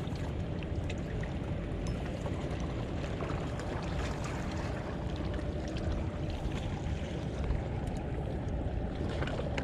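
Steady wash of water noise, heaviest in the low end, with a faint steady hum and a few faint light ticks.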